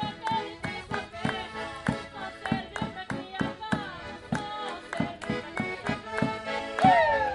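Accordion playing a lively traditional folk tune over a steady percussion beat, about three beats a second. Near the end, a loud falling cry rises over the music.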